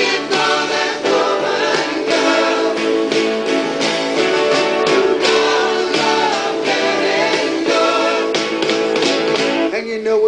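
Background music: a song with guitar and a singing voice.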